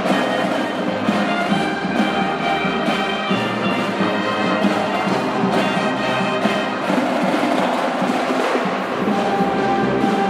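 Music with brass and a steady percussion beat.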